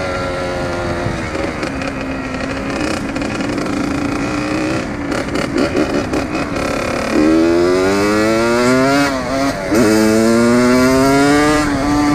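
Dirt bike engine heard from the rider's seat. The engine note falls and settles into a steady low cruise. About seven seconds in it rises in a long climb under throttle, drops back briefly just after nine seconds, and climbs again, with wind noise on the microphone partway through.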